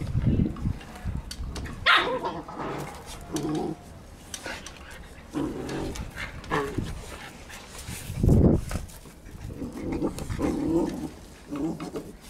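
Keeshond dogs barking several times while playing, in short separate calls, the loudest about eight seconds in.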